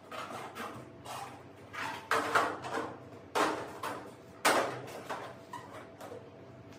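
A series of sharp knocks and clacks of hard parts being handled and fitted while a cabinet is assembled, with four louder ones in the middle of the run.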